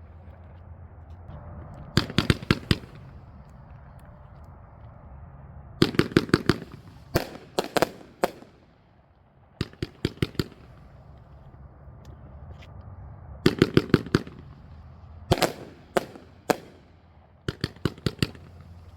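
A Winda Fireworks 'Presto Chango' 30-shot fan cake firing: repeated volleys of sharp bangs, each a quick run of three to six reports, coming in about nine separate clusters a second or two apart.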